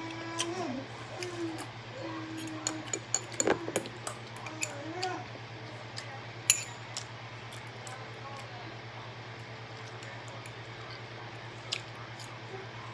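Scattered sharp clicks and clinks of eating with utensils and dishes, over a steady low hum. A soft voice with drawn-out notes is heard in the first five seconds.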